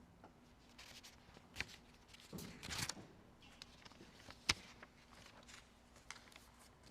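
Faint scattered clicks and soft rustling, with sharper clicks about a second and a half in, near three seconds, and about four and a half seconds in.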